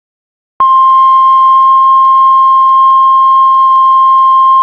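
Heart monitor flatline: after a moment of silence, one loud, steady, unbroken beep tone starts about half a second in and holds, the monitor's signal that the heart has stopped.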